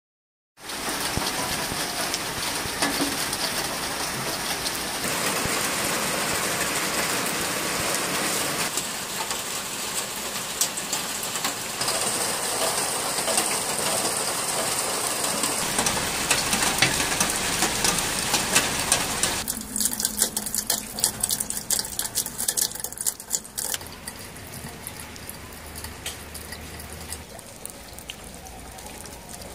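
Heavy rain falling: a dense, steady hiss of rain on wet surfaces and puddles. About two-thirds of the way through it drops in level and separate close drops hitting can be heard, and near the end the rain is softer still.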